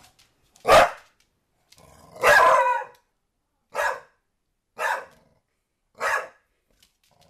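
Pit bull puppy barking at a soccer ball: five sharp barks about a second apart, the second one drawn out longer than the rest.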